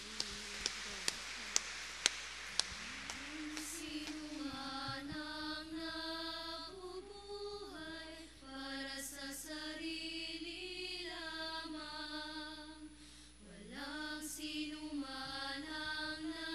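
Voices singing a slow hymn in unison, the closing hymn at the end of Mass, beginning about three seconds in with a short break between lines near the end. Before the singing there is a hiss with a run of sharp clicks, about two a second.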